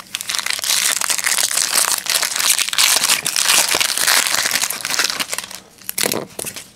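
Metallic foil wrapper of a 2006 Topps Bazooka baseball card pack crinkling and tearing as it is pulled open by hand. The crackling goes on for about five seconds, with a short, fainter rustle near the end.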